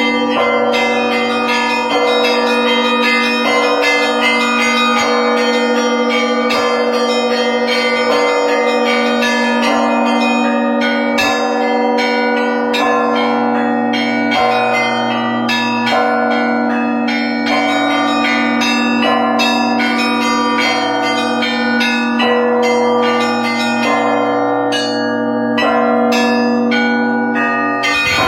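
Russian Orthodox church bells rung in a trezvon, the full peal that calls to the evening service. Quick strikes of the smaller bells run without pause over the steady ringing of the larger bells.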